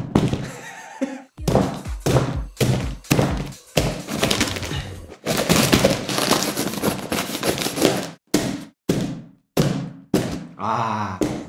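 A sword blade striking a taped cardboard box again and again in sharp thunks, knocking it about on the mat. In the middle it saws and scrapes along the packing tape and cardboard for a few seconds, then a few more strikes follow.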